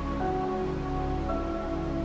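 Background music of soft held notes, the chord changing a couple of times.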